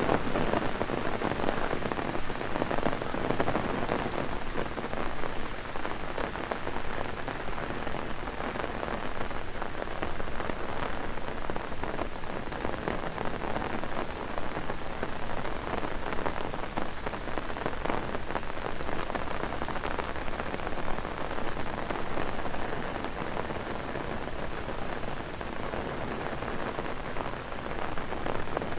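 Heavy rain falling steadily on an umbrella, a dense hiss of many small drop hits, with a steady high cicada drone running underneath.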